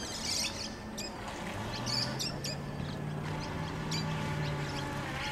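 Small birds chirping in short bursts several times, over a steady low hum that begins about a second and a half in.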